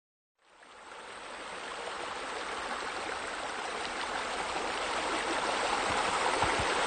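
Running, splashing water, fading in from silence about half a second in and growing steadily louder.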